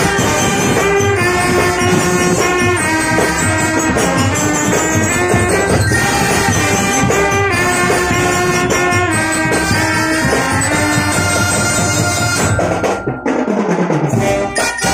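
Brass marching band of trumpets and trombones playing a tune in held notes and chords. Near the end the sound thins for a moment, with a low note sliding down.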